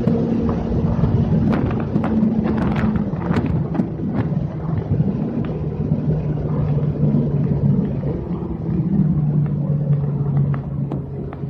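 McLaren 720S twin-turbo V8 heard from inside the cabin, running at low, steady revs over a rumble of road noise. Its pitch drops about three seconds in, and sharp clicks are scattered through the first half.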